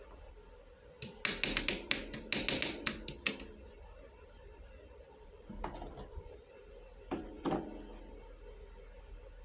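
Small hard pieces of a miniature toy kitchen set clicking and tapping against each other. A quick run of about a dozen light clicks comes about a second in, then a few single clicks later.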